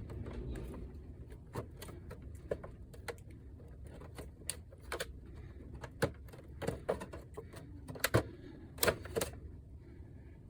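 Irregular sharp clicks and taps, more than a dozen of them, unevenly spaced, over a low steady hum, from hands working on a PlayStation 5 console's parts.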